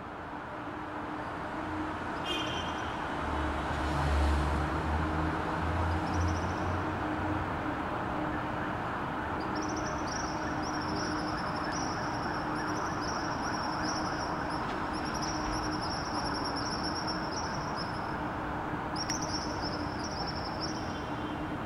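Night city ambience: a steady hum of distant traffic, with a few low rumbles a few seconds in. From about ten seconds in a high, warbling tone comes and goes over it.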